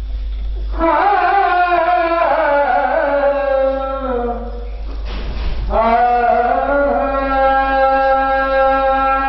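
A man's solo voice reciting a naat, unaccompanied, in a melodic, drawn-out chant through a microphone. He holds long notes that bend in pitch, breaks briefly about five seconds in, then sustains another long line. A steady low hum runs underneath.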